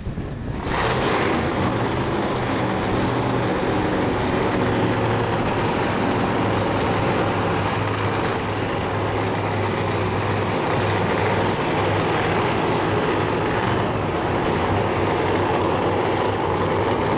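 Alcohol funny car engine running steadily and loudly, coming in suddenly about a second in.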